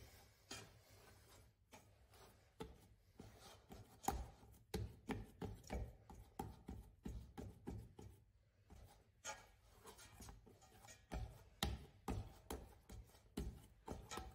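A hand mixing flour and water into a stiff, fairly dry dough in a stainless steel stockpot: soft, irregular thumps, a couple to a few a second, as the fingers press and fold the dough against the pot, more frequent from about four seconds in.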